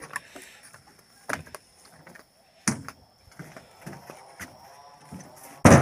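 Rubber-tree logs knocking against each other and against the wooden truck bed as they are loaded, a few separate wooden knocks, with one heavy thud near the end that is the loudest.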